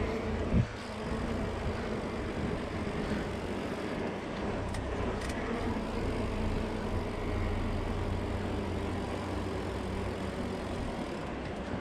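Riding noise from a mountain bike on a brick-paved path: steady wind rush and low rumble on the bike-mounted camera's microphone with tyres rolling over the pavers. A single knock about half a second in.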